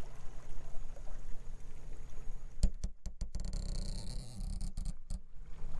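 Steady low rumble of a motorboat under way across open water, with wind and water noise. A little past halfway the sound cuts out abruptly several times in quick succession, then carries on.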